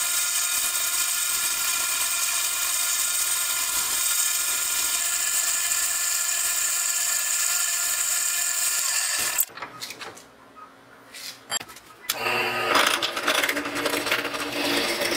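Metal lathe running and cutting a metal part, a steady whine of many even tones, which stops about nine seconds in. After a few quiet knocks, a drill press starts boring into a metal disc held in a vise, rougher and louder, near the end.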